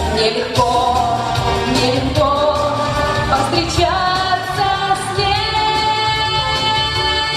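A woman singing a pop song over a backing track, holding a long note through the second half.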